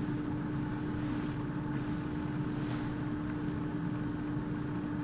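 Steady hum of room ventilation or air conditioning, with one constant low tone held throughout.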